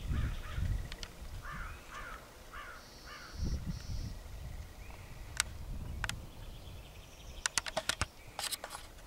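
A crow cawing four times in quick succession. There is a low rumble near the start, and a quick run of sharp clicks near the end.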